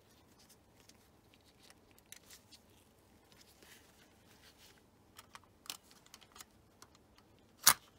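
Rolleiflex 2.8F twin-lens reflex camera handled with gloved hands: scattered small clicks and rubbing of metal and leatherette. Near the end there is one sharp, loud snap as the spring-loaded waist-level finder hood springs open.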